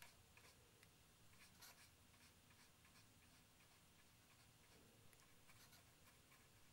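Near silence with faint, irregular soft ticks and scratches of a fine paintbrush working paint onto a plastic model kit.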